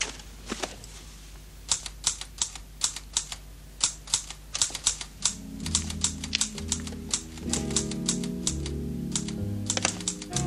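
Manual typewriter keys struck in quick, irregular runs. About halfway through, music with a moving bass line comes in under the typing.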